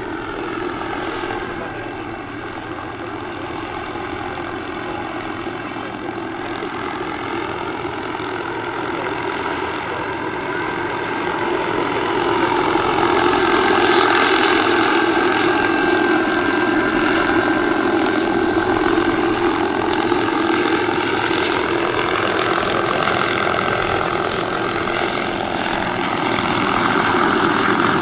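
Scale model Bell AH-1 Cobra helicopter with a small gas-turbine engine in flight: a steady turbine whine with main-rotor noise. It grows louder about twelve seconds in as the helicopter passes close.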